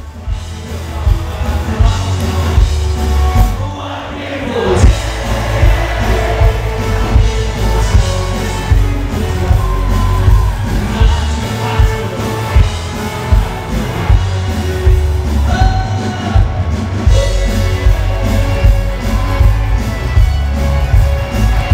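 A live band playing loud amplified music with a singer, heard from within the audience, the bass very strong and a steady beat running through it.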